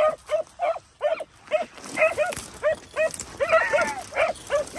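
Rabbit-hunting hounds giving voice in short, quick yelps, about three a second, with more than one dog yelping at once about three and a half seconds in: the pack is running a rabbit's scent trail.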